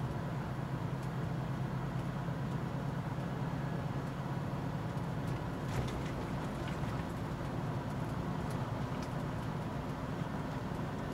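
Steady drone of a semi-truck's diesel engine with road noise, heard inside the cab while driving, with a few faint clicks in the second half.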